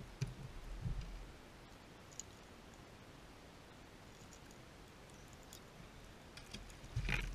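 Small clicks and knocks of handling as a largemouth bass is worked off a square-bill crankbait's treble hooks, with soft thumps about a second in and a louder, brief scuffle near the end.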